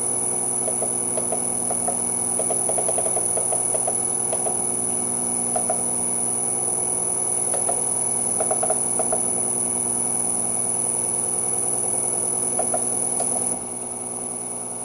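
Three-phase electric motor running unloaded on a variable frequency drive at about 20 Hz, a steady hum with a high thin drive whine and a light irregular rattle; the drive's torque compensation has just been set to zero, which makes quite a difference to how it runs. The sound drops a little near the end.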